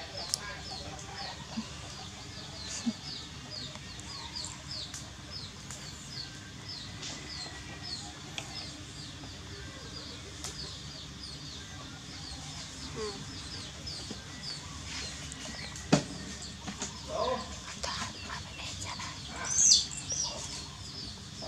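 Chickens in the background: a short high chirp repeating about two or three times a second, with some clucking toward the end. A single sharp click about three-quarters of the way through is the loudest sound.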